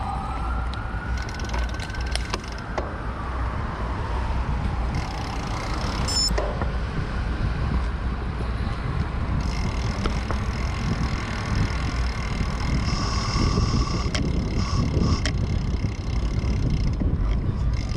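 A siren wails, its pitch rising and then falling away over the first few seconds. Under it and after it there is a steady rumble of wind and road noise from riding a bicycle.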